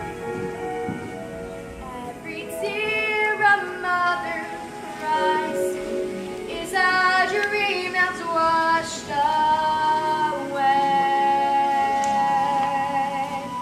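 A female solo voice singing a melody over instrumental accompaniment. The voice comes in about two seconds in and ends on a long held note.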